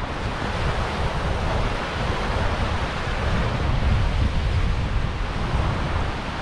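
Loud, steady rushing noise with wind buffeting the microphone, in an uneven low rumble; it cuts off abruptly at the end.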